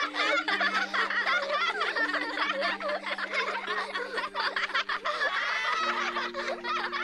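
A whole class of children laughing at once, many overlapping laughs and giggles in a dense, continuous crowd of laughter.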